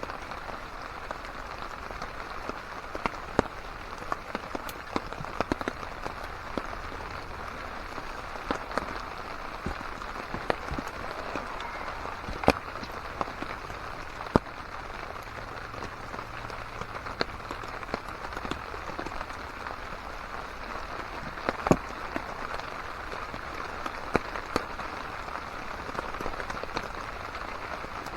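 Steady rain pattering on a camp tarp overhead, dotted throughout with sharp single ticks and pops.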